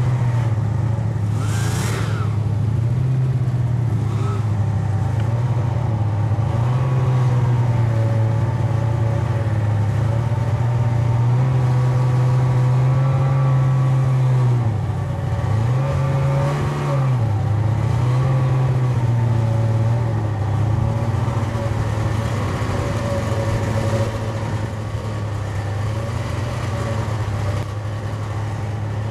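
Snowmobile engine running under way, a steady drone whose pitch dips and rises a few times as the throttle eases and opens again. A short hiss about two seconds in.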